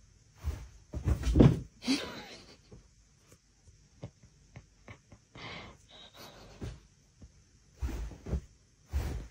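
Cat jumping and scrambling on a bed: thuds and duvet rustling, with a cluster of heavy thumps about a second in and more thumps near the end. A brief pitched sound comes about two seconds in, and soft scattered knocks fall in between.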